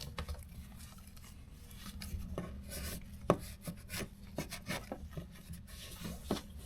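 Excess mastic sealant being wiped off around a newly fitted deck socket by hand: soft rubbing with irregular small knocks and clicks, one sharper knock near the middle.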